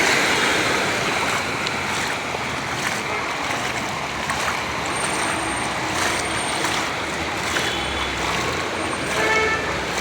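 Steady rush of floodwater and heavy rain, a dense, even noise with no letup.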